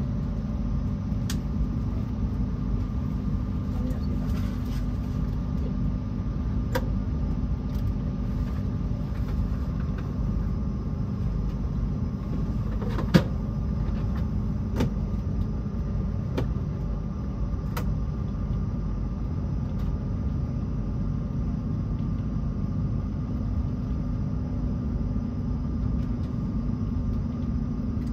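Renfe Class S120 high-speed train running, heard from inside the carriage: a steady low rumble with a faint steady hum over it. A few sharp clicks are scattered through it, the loudest about 13 seconds in.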